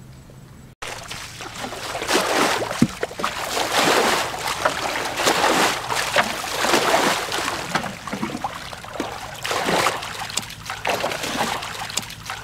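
Muddy water splashing and sloshing as a plastic bucket scoops it up and tips it out, bailing a shallow ditch in repeated, irregular strokes. It starts about a second in, after a short low hum.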